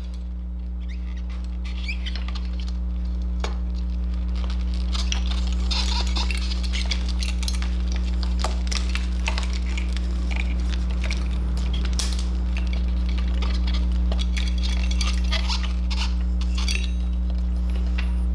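Light clicks and clinks of plastic wiring connectors and a metal turn-signal bracket being handled and fitted on a motorcycle's front end. A steady low hum runs underneath.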